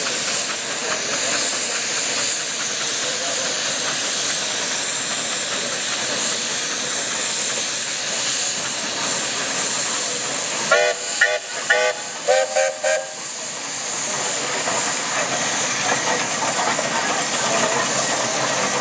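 Steam traction engines working under way, giving a steady hiss. About eleven seconds in, a steam whistle sounds a run of short toots, six or so in two quick groups.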